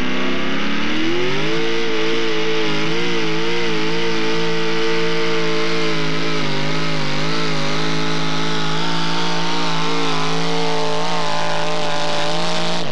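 Modified four-wheel-drive pulling truck's engine under full load pulling the sled: the revs climb sharply about a second in, then hold high with the pitch wavering up and down.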